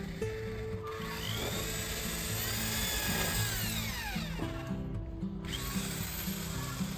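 A power drill whining under background music; its pitch climbs and then falls away over a couple of seconds in the middle.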